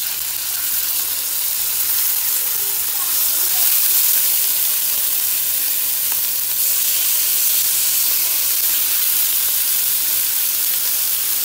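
Thin beef steaks frying in a hot ridged grill pan: a loud, steady sizzle that grows a little louder a few seconds in as more meat goes into the pan.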